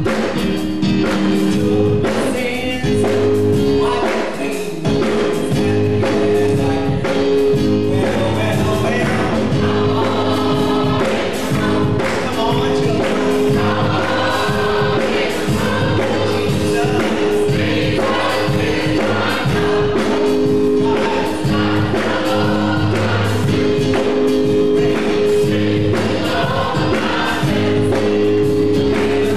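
Gospel choir singing in full voice, accompanied by keyboard, with a steady beat running underneath.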